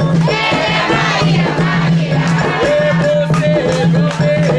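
A group of voices singing an Umbanda ponto (ritual chant) together, with sharp drum or clap strokes over a steady low hum.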